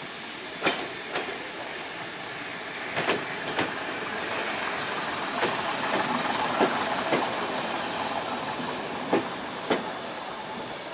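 Steam train: a steady hiss that swells in the middle, with about ten irregular sharp knocks.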